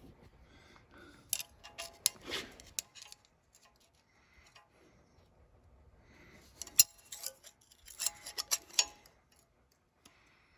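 Scattered light metallic clicks and taps as a steel rule is handled and set against the upper control arm's shaft end to measure it. They come in two short clusters, about a second in and again around seven to nine seconds.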